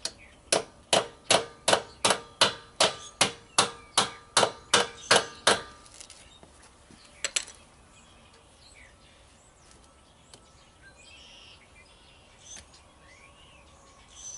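A hammer tapping a balance weight onto a semi truck's wheel rim: about fifteen sharp metallic blows, roughly three a second, each with a short ring, ending about five and a half seconds in. A quick double knock follows about seven seconds in.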